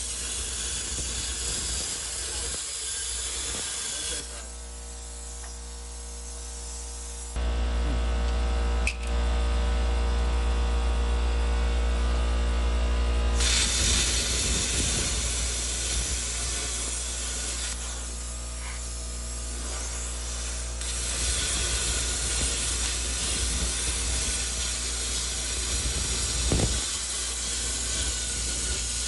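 Bestarc BTC500DP plasma cutter torch hissing steadily as it cuts through the steel of a Jeep JK frame rail. The hiss thins for several seconds about a third of the way in, then comes back, over a low steady hum.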